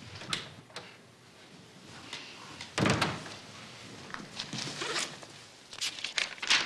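Files and papers being handled: scattered rustling and soft knocks, with one louder thump nearly three seconds in and a quick run of clicks near the end.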